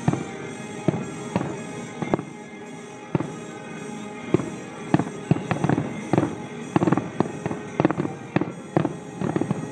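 Aerial fireworks exploding: a few separate bangs in the first seconds, then from about halfway a rapid barrage of many bursts in quick succession. Music plays underneath.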